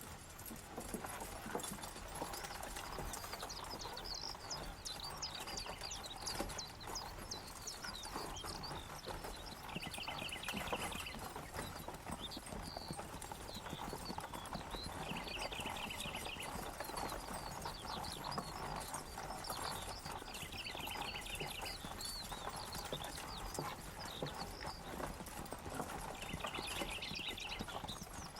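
Horses' hooves clip-clopping steadily, with a short high trill recurring about every five seconds over a low background hum of activity.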